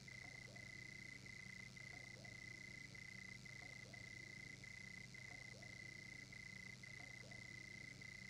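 Faint night chorus of frogs: a steady high-pitched trill broken by short gaps about every half second, with faint low croaks now and then.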